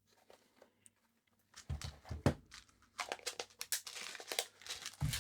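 Tools and small parts being handled on a workbench: a few knocks about two seconds in, then a crinkling, rustling noise.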